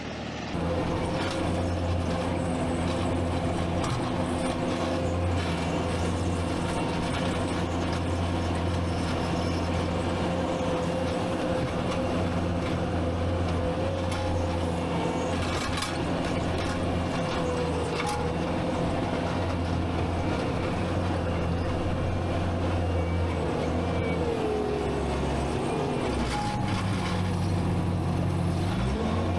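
Skid steer engine running steadily at high revs, with a whine above it. Near the end the pitch sags for a few seconds and then climbs back.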